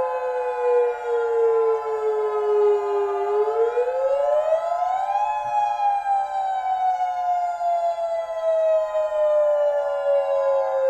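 Civil-defense-style warning siren wailing. Its pitch sinks for about three seconds, climbs quickly to a peak about five seconds in, then slowly falls again, over several steady tones held beneath it.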